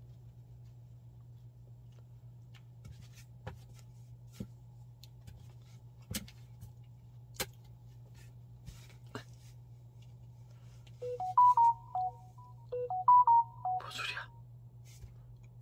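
A short electronic jingle of pure beeping tones, played twice in quick succession about eleven seconds in, is the loudest sound. Before it, light scattered clicks and taps of a puppy playing with toys in a cardboard box, over a low steady hum. A brief rustle follows the jingle.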